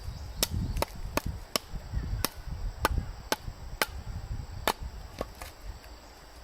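A blade chopping with about eleven sharp, separate strikes, roughly two a second, which stop shortly before the end.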